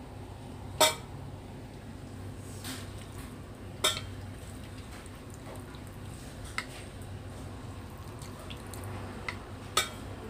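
Plastic soup ladle knocking against the pot and bowl as broth is ladled into a ramen bowl: a few sharp clacks, the loudest about a second in, another near four seconds and one near the end, with faint dripping of broth.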